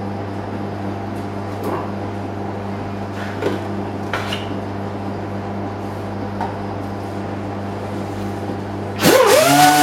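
A steady low hum with a few light knocks. About nine seconds in, a handheld rotary sander with a 40-grit disc starts up, its whine rising quickly and then holding steady at running speed.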